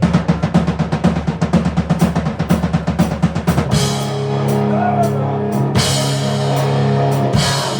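Hard rock band playing live: a rapid run of drum hits, then about four seconds in the band comes in on long held chords with cymbal crashes.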